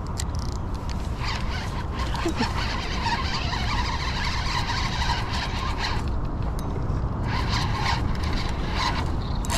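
Fishing reel being cranked against a hooked coho salmon, its gears and drag giving a rapid run of clicks that pauses briefly about six seconds in, over a steady low rumble of wind on the microphone.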